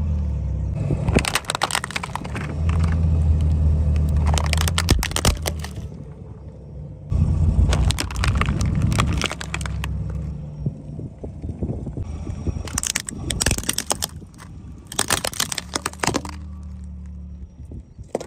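A car's tyres rolling over and crushing brittle objects: several bursts of cracking and snapping over the steady low hum of the car's engine.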